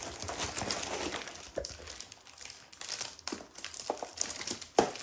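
Foam packing peanuts rustling as a hand digs through them in a cardboard box, densely for about two seconds and then in scattered light clicks, with one sharp click near the end.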